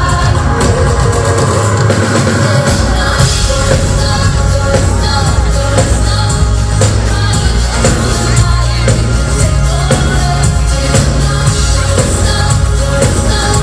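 Synth-pop band playing live over a PA: singing over keyboards, a drum kit and a strong bass line, loud and continuous, heard from within the audience.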